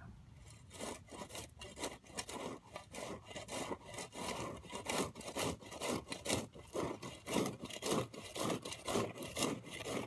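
Flat shovel scraping across soil in a quick run of short, repeated strokes, a few each second, shaving off high spots to level a garden walkway.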